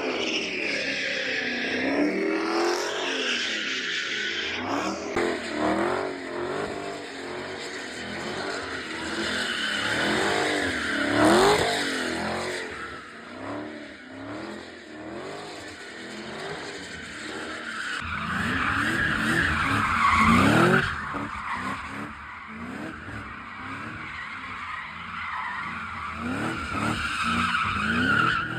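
Supercharged Cadillac CTS-V V8 doing donuts, its engine revving up and down over and over while the tires screech and skid; the loudest peaks come about 11 and 20 seconds in.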